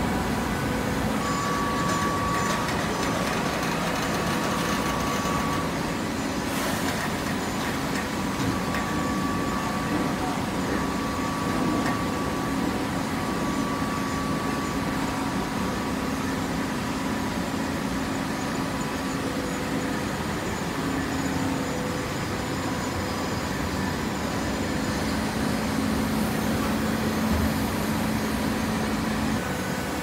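Automatic horizontal hydraulic baler running: a steady drone from its motor and hydraulic pump, with a hum that holds a few steady tones.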